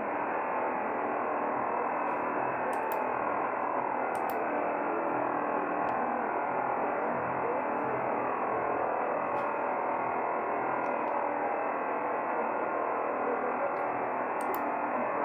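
Shortwave reception of the Rostov VOLMET aviation weather frequency, 6617 kHz, through a Kenwood R-5000 communications receiver's speaker: a steady, dense jamming noise fills the receiver's narrow audio band at an even level. It is the deliberate jamming of the frequency, under which the station's voice is hard to pick out.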